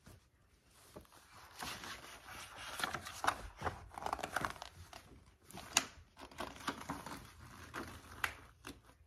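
Pages of a paper picture book being turned and handled: irregular paper rustling with short clicks, one sharper snap about six seconds in.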